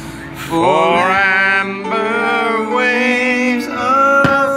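A song with a singer holding long notes, played loud, with one sharp firework bang near the end.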